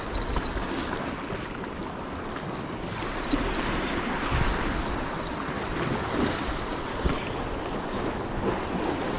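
Sea waves washing against the rocks below, swelling and easing, with wind buffeting the microphone.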